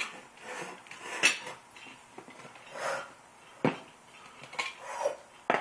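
Metal clinks and knocks from a beer-can cook pot being opened and its lid and small stove parts handled and set down on a table. There are a few separate sharp taps: the loudest comes about a second in, and two more sharp ones come later, the last just at the end.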